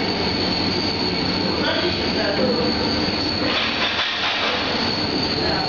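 FAST700P electric dough sheeter running, its motor and conveyor belts giving a steady hum with a constant high whine as a sheet of dough is fed through the rollers.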